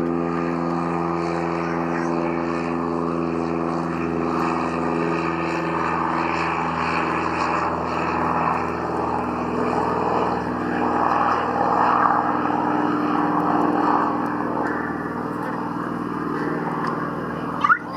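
Piper PA-46 Malibu single-engine propeller plane running at takeoff power as it accelerates down the runway: a steady engine-and-propeller drone whose even tone fades after several seconds into a broader rushing noise as the plane pulls away.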